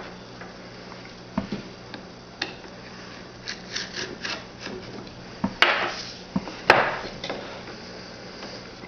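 A cardboard box of trading cards being handled and opened: scattered light taps and knocks, with two louder scraping rustles of cardboard and packaging about six seconds in.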